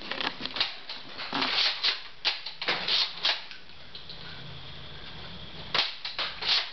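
Plastic clicking and clacking of a toy Nerf blaster being worked in the hands. There is a quick, irregular flurry of clicks for the first three seconds, a quieter pause, then another cluster of clacks near the end.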